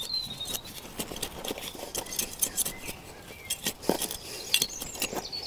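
Hand trowel working garden soil: a quick irregular run of short scrapes and clicks as the ground is loosened and plants set in.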